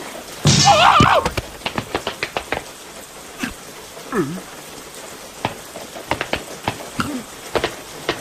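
Cartoon rain: raindrops dripping in irregular short ticks. A cartoon character gives a short wavering wordless vocal sound about half a second in, with brief vocal sounds near four and seven seconds.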